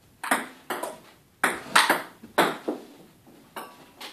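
Table tennis rally: the celluloid-type ball clicking off paddles and the table, about eight sharp hits at an uneven pace, a few close together.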